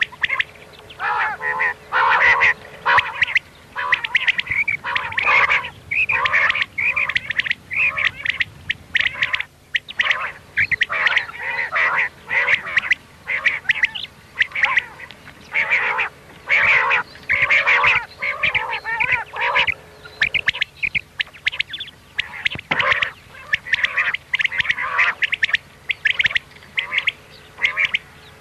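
Quail calling, a dense run of short, sharp calls repeated several times a second in clusters, with a brief lull about ten seconds in.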